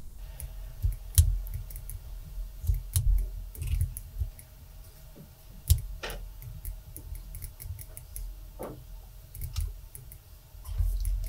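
Irregular computer mouse clicks and keyboard taps, short and scattered, over a faint low hum.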